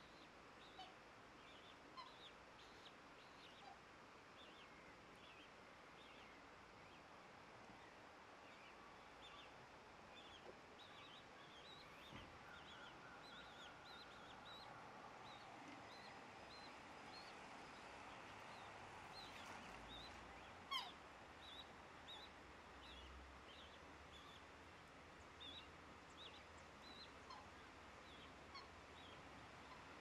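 Black swan cygnets peeping faintly over a steady hiss, many short high calls a few at a time throughout, with one louder, sharp call about two-thirds of the way through.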